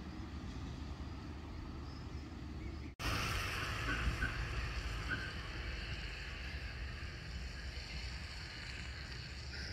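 Steady outdoor background noise with a low rumble. About three seconds in, an abrupt cut brings a brighter hiss and a few faint short high notes.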